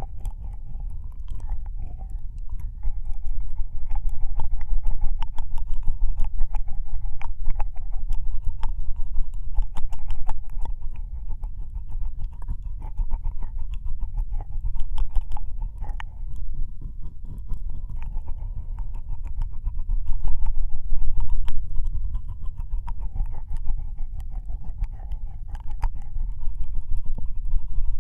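Ear-licking ASMR mouth sounds on a binaural microphone: a rapid, continuous stream of wet tongue and lip clicks and smacks very close to the ear, over a low rumble.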